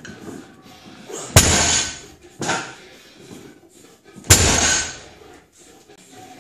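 Loaded barbell with rubber bumper plates touching down on a lifting platform between deadlift reps: two sharp thuds with a rattle of plates, about three seconds apart, and a fainter sound between them.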